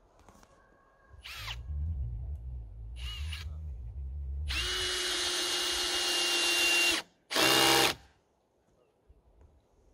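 Cordless drill working at a wooden post: two short blips, then a steady run of about two and a half seconds with its motor whine holding one pitch, then a last short burst.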